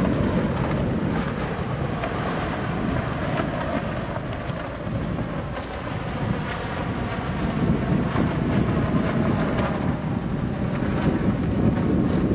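Steady wind noise rumbling on the microphone, dipping slightly about halfway.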